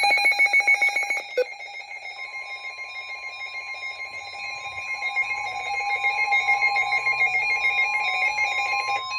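Weather radio alert tones: an electronic alarm of several high tones, pulsing rapidly for about the first second, then held steady, joined about two seconds in by a single steady warning alarm tone just above 1 kHz. The tones announce an incoming severe thunderstorm warning broadcast.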